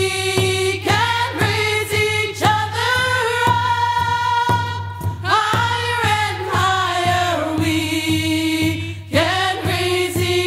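Background music: voices singing long, gliding held notes without clear words, over a steady beat of about two strikes a second.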